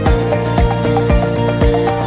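Background music with a steady beat, about two beats a second, over held notes and a light melody.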